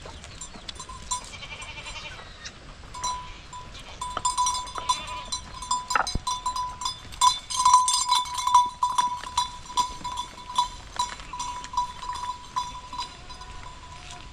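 Small metal livestock bells on goats clanking in irregular strokes as the animals move, busiest from about four to nine seconds in, with goats bleating. A single sharp knock about six seconds in.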